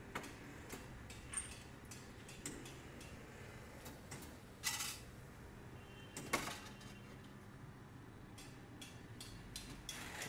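Hydraulic compressed-earth block press at work: a low steady hum under scattered light metallic clicks and clanks, with two louder knocks around the middle.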